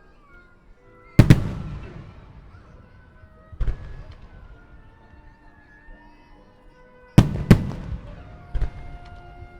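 Aerial fireworks shells bursting with sharp booms: a double boom about a second in, another a couple of seconds later, a close pair about seven seconds in and one more near the end, each followed by a low rumbling echo. Faint music plays underneath.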